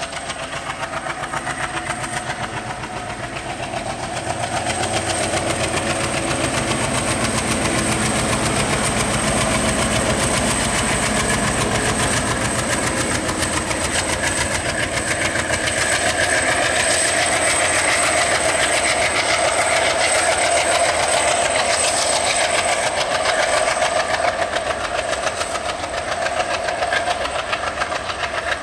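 3100 hp ALCo WDG3A diesel locomotive chugging hard under the load of a heavily loaded freight train, growing louder about four seconds in as it draws near and passes, with the wagons rattling over the rail joints behind it.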